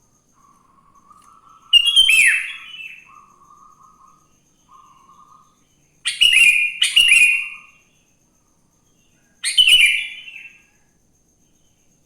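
Sooty-headed bulbul (kutilang) singing: four loud, bright, bubbly phrases, one about two seconds in, two close together around the middle and one near the end. Softer, lower warbling runs under the first half.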